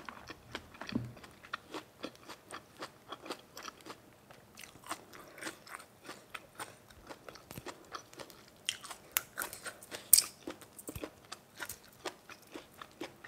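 Close-miked chewing and crunching of food: a quick, irregular run of crisp clicks and smacks, with one louder crunch about ten seconds in.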